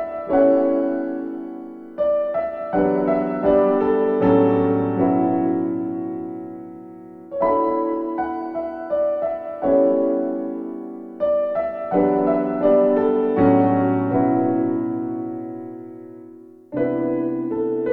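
Background music: gentle piano chords and melody, each phrase struck and left to fade.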